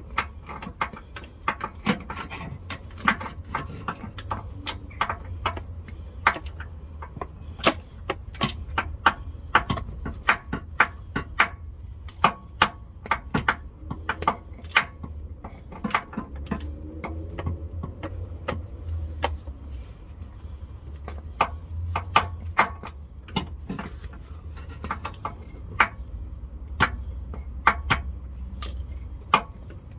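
Irregular metallic clicks and clinks of a 24 mm socket on an extension bar working the gearbox drain bolt, several a second, over a low rumble.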